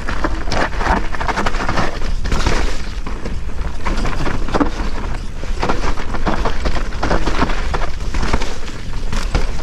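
Electric mountain bike rattling and knocking as it descends rough forest singletrack: a dense, continuous run of clatters from the bike and tyres on roots and stones, over a steady low wind rumble on the helmet-mounted microphone.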